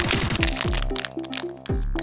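Background music with a repeating melody and falling bass notes, over the crackling and crinkling of a foil blind-box wrapper being torn open and unfolded by hand.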